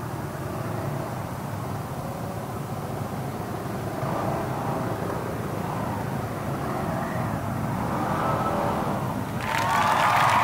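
Road traffic, a steady low rumble of motor vehicles on the move. Near the end it switches suddenly to a louder, brighter sound with a held high tone.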